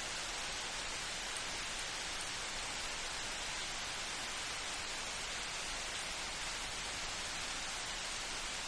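Light rain falling steadily in a forest, an even hiss with no thunder.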